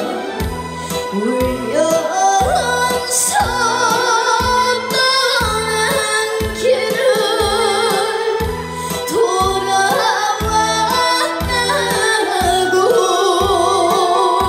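A female vocalist singing a Korean trot song with heavy vibrato over a backing track with a steady bass beat.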